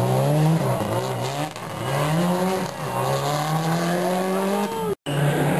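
Rally car engine accelerating hard, its pitch climbing in several runs that each break off and restart lower as the gears change. About five seconds in the sound cuts out abruptly and comes back as a steadier engine note.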